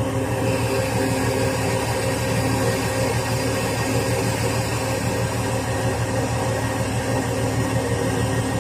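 Lifting crane's diesel engine running steadily as it holds the suspended crusher body, a low even drone under a steady hiss.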